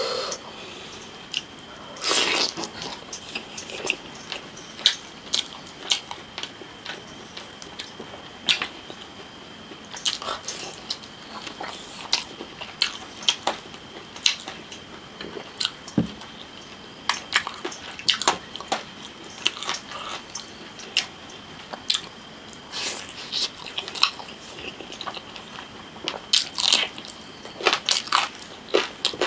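Close-miked mukbang eating: a man chewing chicken leg meat and spicy noodles eaten by hand, with irregular wet smacks and clicks of the mouth and fingers. A faint steady high whine runs underneath.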